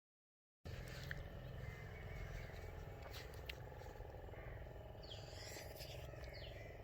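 Faint outdoor ambience with a low steady rumble, a few faint clicks and a few faint high chirps, after a brief moment of dead silence at the start.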